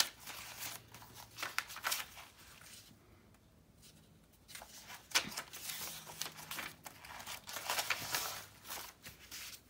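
Paper rustling and shuffling as a stack of cut paper collage pieces is flipped through by hand, with a quieter pause about three seconds in before the handling picks up again.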